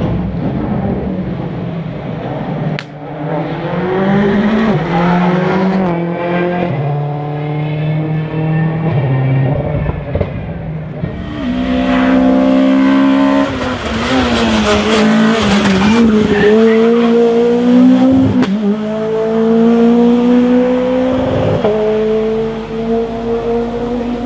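Rally cars at full racing pace, their engines climbing in pitch and dropping back at each gear change through a run of shifts. About eleven seconds in, a different car takes over with the same pattern of rising revs and quick upshifts.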